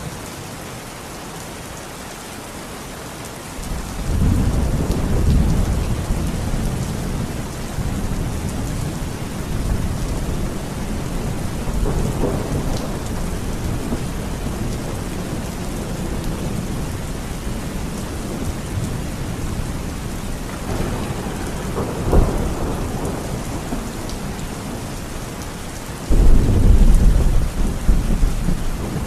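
Heavy rain falling steadily through a thunderstorm, with rolling thunder: a long low rumble sets in about four seconds in, swells again partway through with a sharp crack about three-quarters of the way, and a sudden loud clap of thunder breaks near the end.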